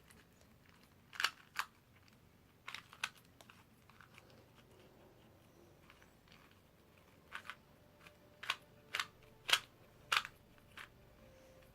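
Plastic speed cubes being handled: about a dozen short, sharp clicks and clacks, a pair near the start and more of them in quicker succession in the second half.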